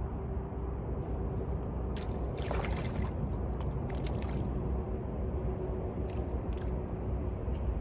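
A hooked fish splashing and thrashing at the lake surface on a float-fishing line, in short bursts about two to three seconds in and again about four seconds in, over a steady outdoor background hiss.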